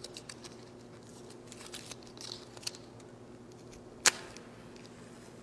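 Small clicks and rustles of hands lighting candles on a communion table, with a short scratchy hiss about two seconds in and one sharp click about four seconds in.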